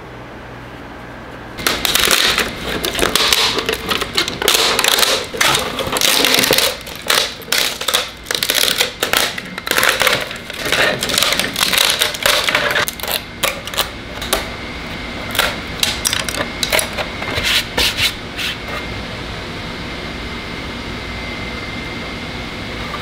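3D-printed support material being snapped and peeled away from inside a printed plastic mask: rapid, irregular cracking and clicking of breaking plastic, starting a couple of seconds in and dying away a few seconds before the end.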